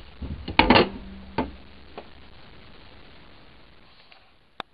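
Metal clanking as a cast-iron Dutch oven is pushed into a wood stove's firebox: a cluster of loud clanks about half a second in with a brief ring, then single knocks as the stove door is shut. A short sharp click comes near the end.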